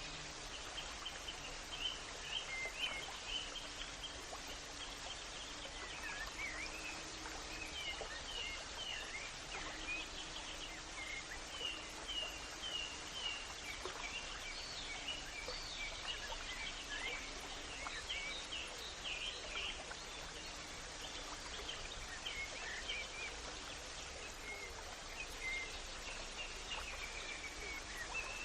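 Birds chirping and twittering almost without pause, many short high calls overlapping, over a steady background hiss.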